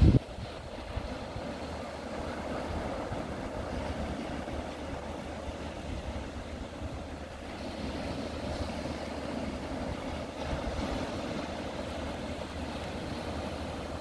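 Steady sound of small waves washing onto a beach, with wind noise on the microphone and a brief loud thump at the very start.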